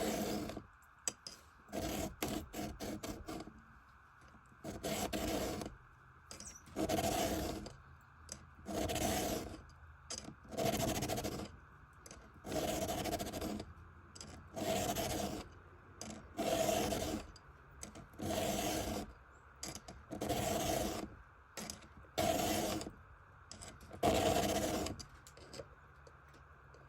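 A chainsaw file scraping across the cutter teeth of a saw chain in slow, even hand strokes, about one every two seconds, as the chain is sharpened.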